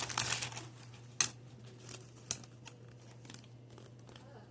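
Plastic shopping bags rustling and crinkling, with a sharp click about a second in and another a second later, over a faint steady hum.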